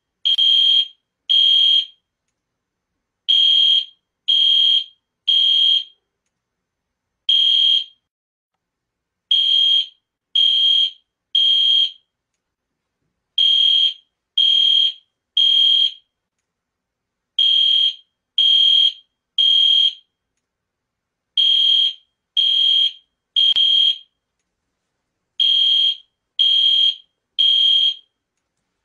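Fire alarm horn sounding the temporal-three evacuation pattern: groups of three loud, high beeps about a second apart, with a pause of about two seconds between groups. One group, about seven seconds in, has only a single beep.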